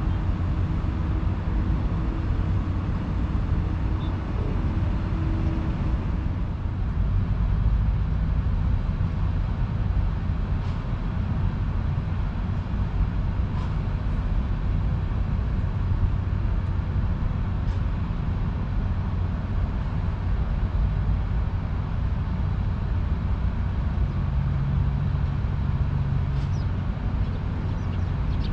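Steady low rumble of outdoor background noise, with a faint engine-like drone in the first few seconds and again near the end. A few faint ticks stand out from it.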